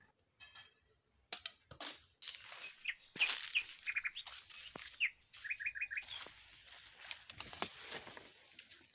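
Small birds chirping in short quick runs of three or four notes, over a light rustling hiss with a few sharp knocks; it starts after about a second of near silence.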